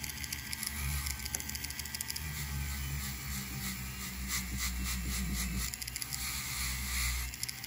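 Flex shaft rotary tool running steadily, its Scotch-Brite polishing wheel brushing lightly over a silver piece: a low motor hum under a faint scratchy hiss. The wheel is taking off the blackened layer and leaving a satin finish.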